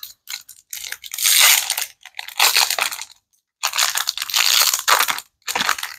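Foil wrapper of a Lorcana trading-card booster pack crinkling as it is torn open and handled, in several short, loud bursts.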